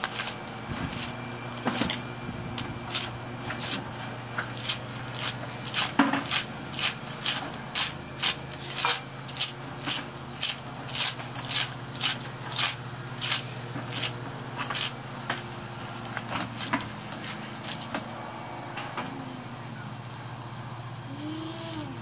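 Small stones and grit scraping and clinking as a toy construction vehicle is pushed through loose gravel and dirt. The short scrapes come about one or two a second and are loudest in the middle. Steady, evenly repeating insect chirping and a low hum continue underneath.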